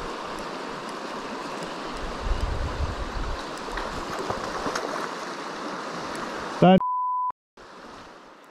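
Fast river water rushing steadily, with a few low bumps of wind or handling on the microphone. About two-thirds of the way in, a short shout is cut off by a half-second steady censor bleep, then a brief dead gap in the sound.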